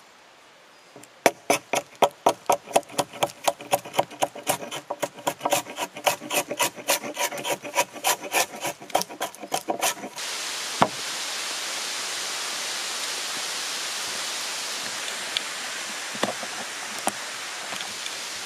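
A hatchet blade scraping bark off a fresh wooden pole in quick, even strokes, about four a second. About ten seconds in, a steady hiss of rain falling on the forest leaves starts suddenly, with only a few more scrapes over it.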